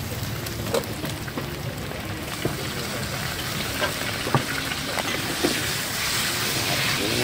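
Egg frying in hot oil in a steel wok, sizzling steadily and growing a little louder near the end. The metal spatula clicks sharply against the wok a few times.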